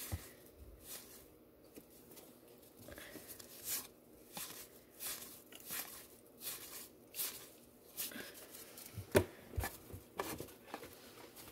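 Cardboard baseball cards being flipped through by hand: a string of short, light flicks and slides, about one a second, with one sharper tap about nine seconds in.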